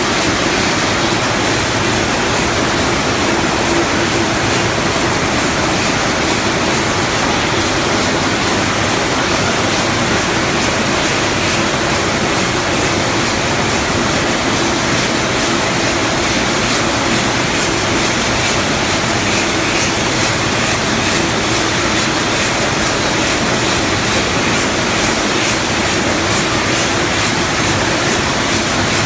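Loud, steady machinery din of a running Linco poultry processing line, with its overhead shackle conveyors and processing machines. The noise is an even hiss with a steady hum underneath and faint rapid ticking, unchanging throughout.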